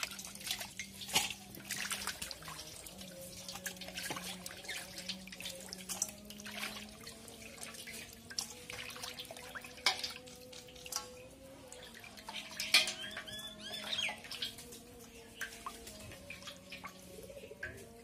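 Water splashing and sloshing in a stainless-steel bowl as cut fish pieces are washed by hand, with drips and sharp splashes now and then.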